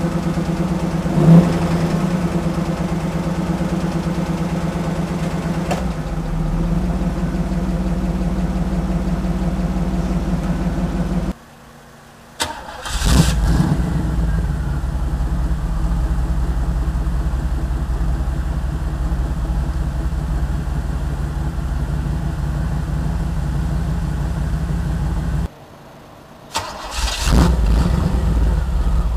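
Exhaust of a Pontiac's small-block V8 heard close at the tailpipe. First a roller 305 idles, with a short rev about a second in. After a brief drop in level, a rebuilt 1988 350 four-bolt-main small block picks up and runs at a low idle through big exhaust pipes, dipping once more briefly near the end.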